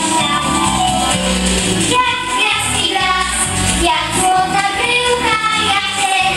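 A young girl singing a pop song into a microphone, amplified, over instrumental accompaniment with a steady bass line.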